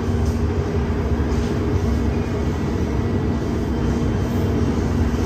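MTR Kwun Tong Line M-Train running between stations: a steady rumble of the wheels on the track, with an even, level hum from the train.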